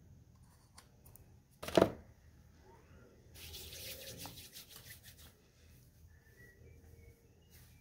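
Hands working on hair: a sharp knock about two seconds in, then a couple of seconds of brisk rubbing strokes against the hair.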